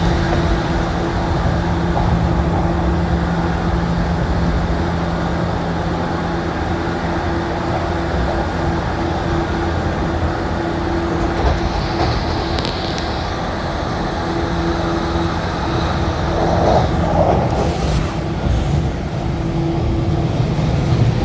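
JR 185 series electric train running, heard from inside the passenger car: a steady rumble of wheels on rail with a low hum from the traction motors and gears.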